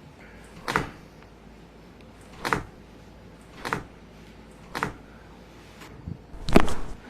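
Sharp cracks and knocks from a chiropractic adjustment being delivered: about five short, separate strikes a second or so apart, the loudest near the end.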